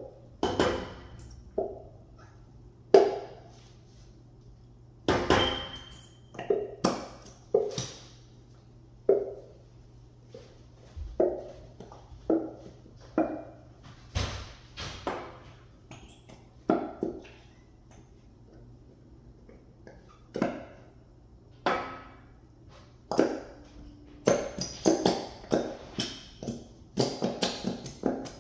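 A plastic glue bottle being squeezed again and again over a bowl, giving short sharp clicks and squelches. They come about once a second, unevenly, and crowd together near the end.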